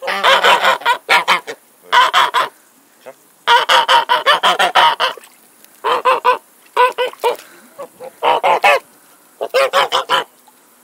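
White domestic geese honking loudly, in repeated bouts of rapid honks separated by short pauses.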